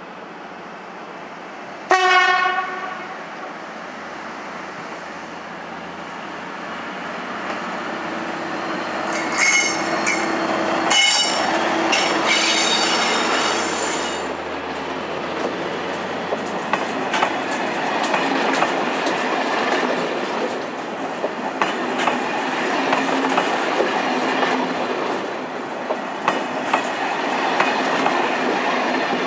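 An SNCF diesel locomotive sounds a short horn blast about two seconds in, then a rake of Corail coaches rolls slowly past on the shunt into the siding. The wheels squeal on the track for a few seconds near the middle, and after that there is a steady rumble with clicks of wheels over rail joints.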